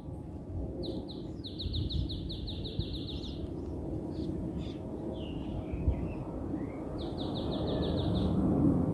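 A bird sings a rapid trill of repeated high notes about a second in and again near the end, with a few short chirps between. Underneath, the low rumble of a Boeing 717 jet taking off slowly builds.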